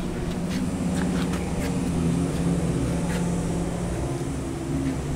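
A car engine idling with a steady low hum. A few light clicks sound over it.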